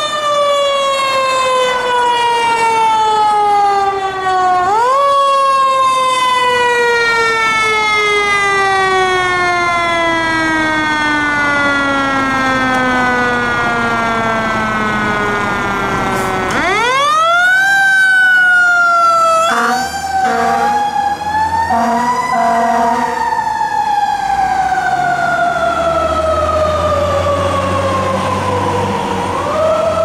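Federal Signal Q mechanical siren on a fire engine, coasting down in long, slow falling wails that nearly die out. It spins back up about four seconds in, and again sharply about sixteen seconds in. Several short air-horn blasts come at about twenty seconds, then the siren wails up and down while the truck's engine runs low underneath near the end.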